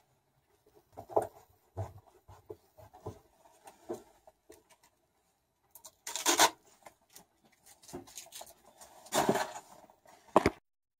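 Screws being driven in by hand with a screwdriver: scattered small clicks and scrapes, with two louder scraping bursts about six and nine seconds in and a sharp click near the end.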